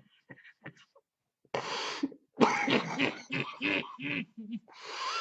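A man coughing hard: one rough cough about one and a half seconds in, then a rapid string of throaty coughs, with another cough near the end.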